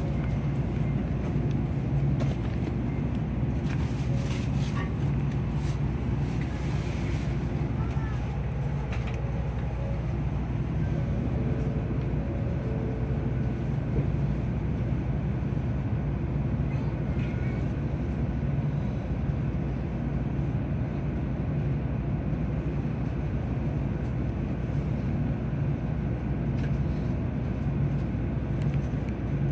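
Steady low hum inside the passenger cabin of a Kyushu Shinkansen N700-series train standing at a platform, from its onboard equipment running while stationary.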